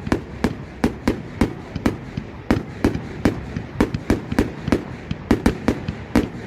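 A fireworks display going off in rapid succession: sharp bangs at about three or four a second, each with a short trailing rumble.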